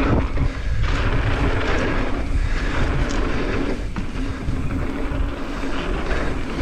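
Wind rushing over the camera's microphone during a fast downhill trail ride, a steady buffeting rush with the rumble and rattle of the ride underneath.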